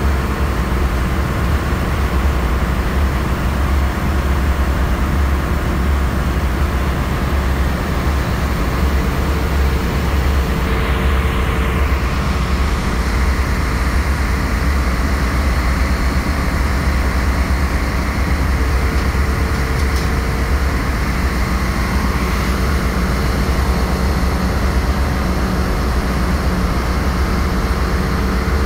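Steady, loud engine-room machinery noise aboard a bulk carrier: a deep continuous drone with a hiss above it, and a faint steady tone that comes in about a third of the way through and again near the end.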